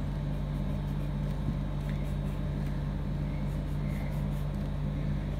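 A steady low hum, with faint scratching of a pencil on paper.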